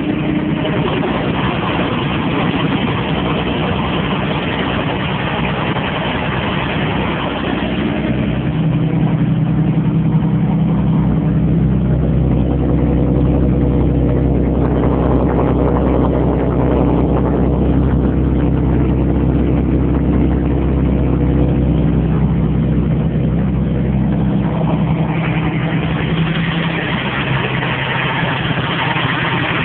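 Freshly rebuilt Ford 300 (4.9 L) straight-six idling steadily through a makeshift flex-pipe exhaust, warming up after a cold start.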